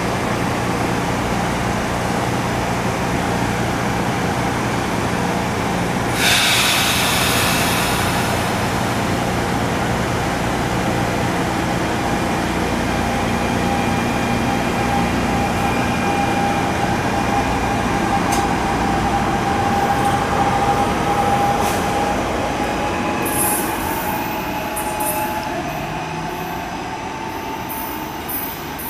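GE Arrow III electric multiple-unit train pulling away and picking up speed, its traction motors whining in a slowly rising pitch over the rumble of the cars. There is a short burst of hiss about six seconds in, and high wheel squeals and clicks near the end as it draws away.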